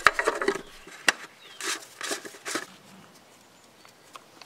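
Plastic oil-filter housing cap on a VW 1.9 TDI engine being screwed on by hand: a few light clicks and rattles, a sharp click about a second in, then two short scraping rubs of plastic on plastic.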